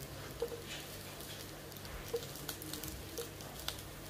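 Bread squares shallow-frying in a little oil in a nonstick tawa: a low steady sizzle with irregular crackles and pops of spattering oil.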